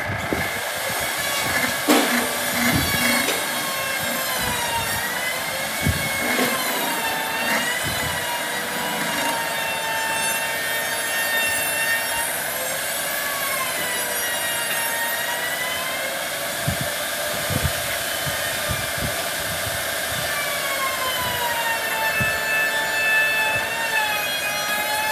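A turned wooden piece spinning on a lathe with a tool or cloth held against it: a steady rubbing hiss with a high squeal that wavers up and down in pitch, and a few light knocks.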